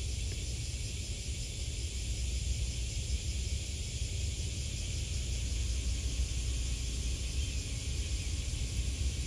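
Steady outdoor ambience: an uneven low rumble with an even high hiss over it.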